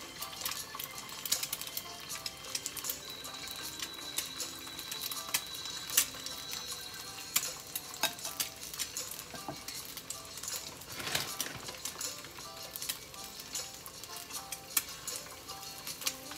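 Food sizzling in a skillet, with repeated sharp clicks of metal kitchen tongs against a serving bowl and pan. Background music plays under it.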